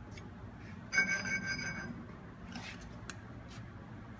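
A small steel block strikes the 36-inch electromagnetic chuck of a Blanchard No. 18 surface grinder about a second in. It gives one bright metallic ring that fades within a second.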